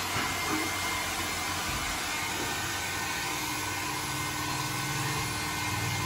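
Small handheld hair dryer running steadily: an even whir of motor and rushing air.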